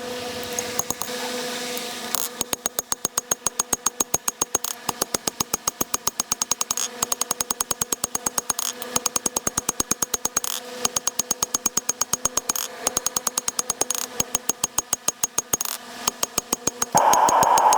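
Hammer blows on a hot wootz steel blade at the anvil while forging the tanto's bevels: rapid, even strikes about five a second in runs of a few seconds with short pauses. A steady hum runs underneath, and a short hiss comes near the end.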